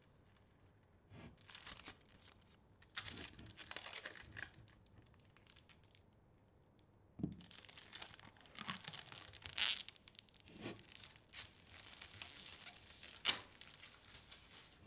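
Bursts of crinkling and tearing, like plastic packaging or film being handled and pulled off, with a few sharp clicks in between; the longest stretch runs from about halfway through to near the end.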